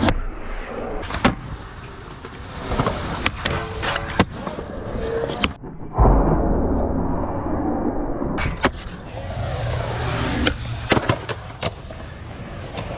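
Skateboard wheels rolling on concrete, with sharp clacks of tail pops and landings. About six seconds in there is a loud hit as a skateboard deck lands on a metal rail, then about two seconds of it sliding along the rail.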